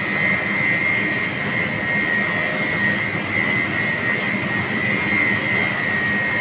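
New Makkah MSP 150 screw oil expeller running while pressing mustard seed: a steady mechanical drone with a constant high whine over it.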